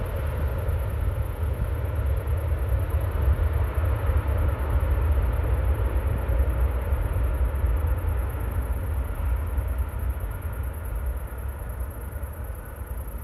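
Jet engines of an Airbus A320 on its landing rollout: a steady low rumble with a fainter hum above it, slowly fading as the aircraft slows.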